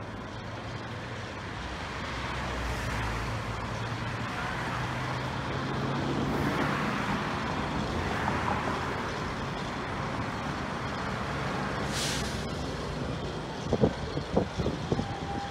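A steady low motor hum under outdoor background noise. A brief hiss comes about twelve seconds in, and a few sharp knocks follow near the end.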